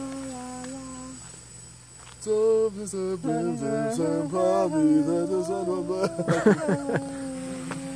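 A small quadcopter drone's motors and propellers whirring in flight. The pitch of the rotors shifts up and down as it manoeuvres, and the whirr grows louder about two seconds in.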